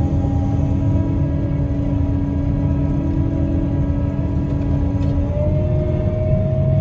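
Combine harvester running steadily while harvesting, heard from inside the cab: a low rumble with a steady whine on top that shifts to a higher pitch about five seconds in.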